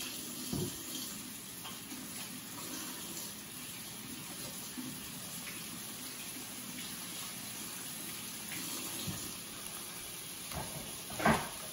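Kitchen tap running steadily into a stainless steel sink while hands are washed, with a short knock near the end.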